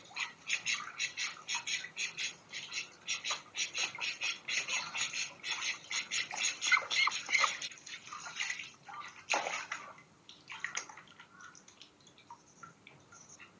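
Domestic ducks splashing in a plastic tub of water: quick, repeated splashes several times a second, thinning out to occasional ones after about ten seconds.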